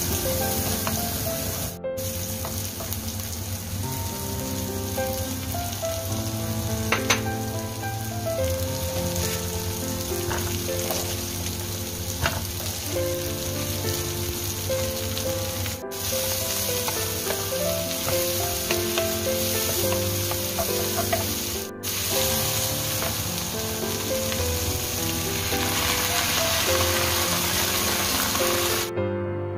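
Vegetables and shrimp sizzling in hot oil in a nonstick wok as they are stir-fried and tossed with a wooden spatula, with a few sharp scrapes and taps of the spatula on the pan. Soft background music runs underneath, and the sizzling cuts off near the end.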